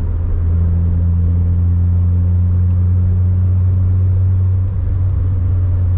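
Honda EK Civic heard from inside the cabin at about 85 km/h: a steady low engine and road drone, with only faint wind noise from the freshly sealed doors. The drone eases slightly near the end.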